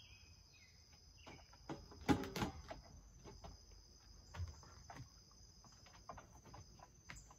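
Steady high drone of insects, with a few short bird chirps near the start. A cluster of knocks about two seconds in is the loudest sound, and lighter clicks follow later: a dog moving on a wooden deck and handling litter by a small wastebasket.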